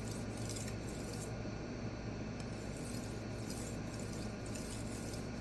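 Steel knife edge being stroked back and forth across a small resin-bonded diamond pocket stone: a steady, faint scraping hiss with brief dips between strokes. The stone is loaded with swarf and no longer cutting well.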